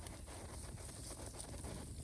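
A bonfire, burning down to embers, crackling faintly with scattered small ticks over a low steady rumble.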